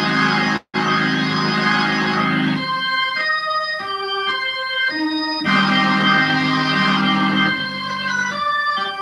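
Electric organ being played: sustained chords, broken in the middle and again near the end by runs of single melody notes. The sound cuts out completely for an instant under a second in.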